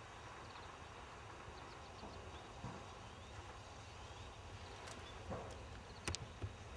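Quiet rural outdoor ambience: a low steady rumble with faint, short bird chirps, and a couple of sharp clicks about six seconds in.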